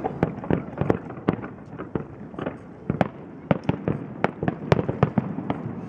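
Fireworks display: a rapid, irregular string of sharp bangs, about three a second, as shells burst one after another.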